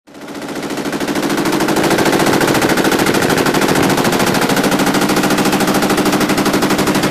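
Tripod-mounted machine gun firing one long, unbroken full-auto burst, the rapid shots running together in an even rattle. It fades in over the first second, and the burst is about a hundred rounds.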